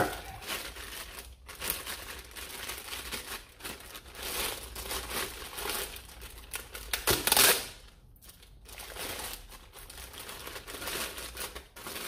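Clear plastic bag crinkling as a foam dart blaster is worked out of it, in irregular rustling bursts that are loudest about seven seconds in.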